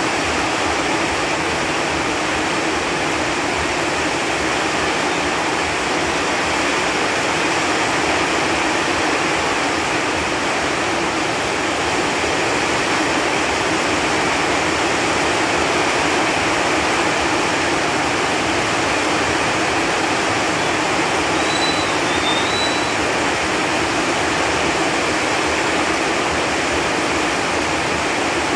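Steady rain falling on leaves, a dense, even patter of drops. A faint, brief chirp sounds about three-quarters of the way through.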